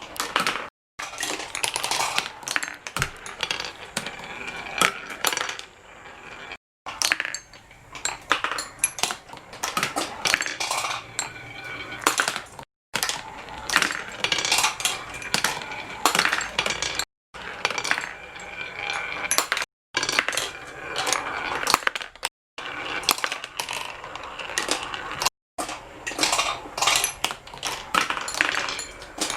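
Marbles rolling and clattering through a small marble run: a dense stream of small hard clicks and clacks, broken several times by brief silent gaps.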